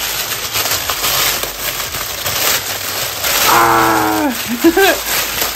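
Plastic poly mailer bag crinkling and rustling as it is torn and pulled open. About three and a half seconds in, a drawn-out voice sound falls in pitch over the crinkling.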